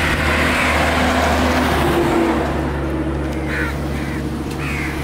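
A steady low engine hum, with a few short high-pitched calls about three and a half seconds in and again near the end.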